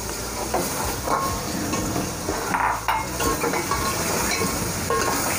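A metal ladle stirs milk into simmering chicken curry masala in an aluminium pot, clinking and scraping against the pot several times over a steady sizzle.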